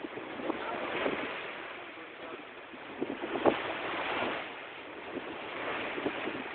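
Wind and sea water rushing past a wooden sailing dhow under way, with wind buffeting the microphone. The noise swells and eases, broken by a few short knocks, the loudest about three and a half seconds in.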